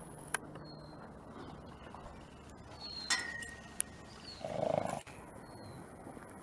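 One short, low animal sound about four and a half seconds in, set among a few sharp clicks.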